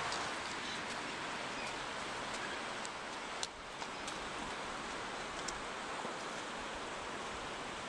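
Steady outdoor hiss of background noise, with a few faint clicks and scrapes as a toddler's sticks and footsteps meet the dirt path.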